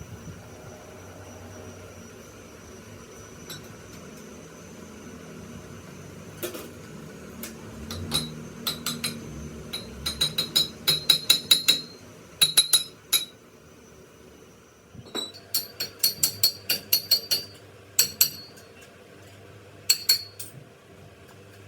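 A hammer striking steel, metal on metal with a ringing clink. The blows come in quick runs of about four a second, mainly in the middle of the stretch and again in the second half, with single blows in between.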